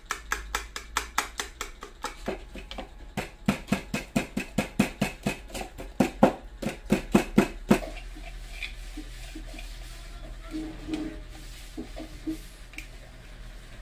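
Spoon beating eggs in a bowl: a fast, even run of clicks against the bowl, about four strokes a second, that stops abruptly about eight seconds in.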